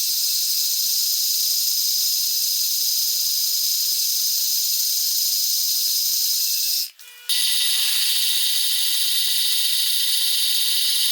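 A power tool running steadily on metal: a constant high-pitched whine with a hiss. It cuts off abruptly about seven seconds in and starts again at once with a slightly different pitch.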